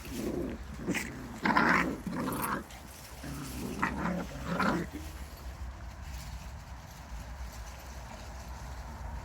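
Beardoodle puppies making a run of short dog sounds, several in a row over the first five seconds.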